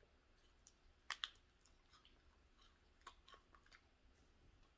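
Faint mouth sounds of a person chewing a Haribo Sour Streamers gummy candy strip: a few soft, scattered clicks, the clearest about a second in.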